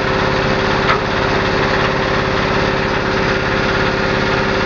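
Small engine running steadily at a constant speed, the power unit driving a hydraulic seaweed baling press. A short clack about a second in.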